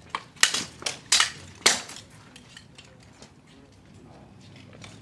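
Steel longswords clashing in a quick exchange of blows: about six sharp metal strikes in under two seconds, the last one ringing briefly.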